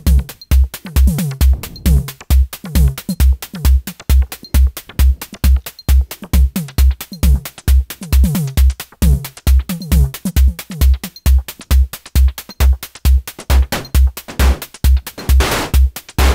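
Techno drum pattern from Reaktor Blocks drum patches sequenced in Maschine at 134 BPM: a steady four-on-the-floor kick with hi-hat ticks and short percussive notes that drop in pitch. Near the end the Bento FM snare comes in twice as a noisy hit trailing into its delay.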